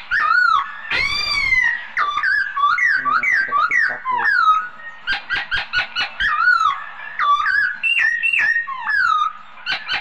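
Caged songbird singing a loud, varied song of slurred whistled notes that glide up and down. Around five to six seconds in, it breaks into a fast run of sharp chip notes, about five a second.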